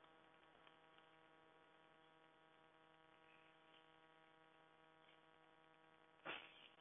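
Near silence: a faint steady electrical hum, with one brief soft sound near the end.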